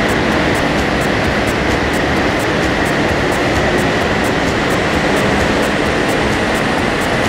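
Steady loud rushing noise from a car running on a chassis dynamometer, with a faint constant high whine and no change in revs.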